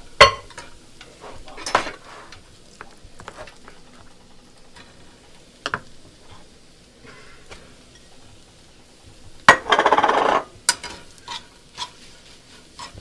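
Kitchen clatter: utensils and dishes knocking and clinking now and then, with a loud noise lasting about a second a little after the middle.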